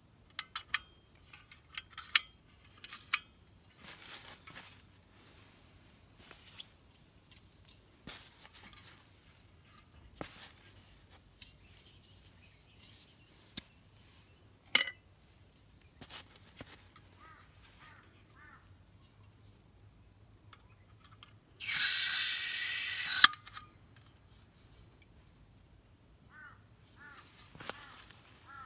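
Metal clicks and clinks as the fold-out pot supports of a portable butane camping stove are opened and a gas cartridge is handled, with one loud hiss lasting about a second and a half near the end.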